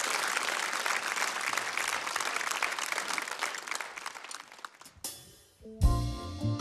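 Audience applauding, the clapping dying away over about four and a half seconds. About five seconds in a drummer's cymbal rings out, and near the end the band comes in with bass notes and chords.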